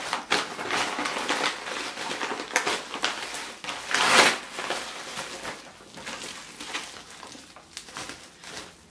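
Kraft-paper mailer and plastic bubble wrap being handled and opened by hand: irregular crinkling and rustling, loudest about four seconds in and quieter toward the end.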